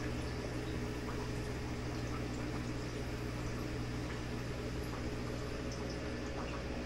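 Aquarium filtration running: a steady electric hum with bubbling, trickling water.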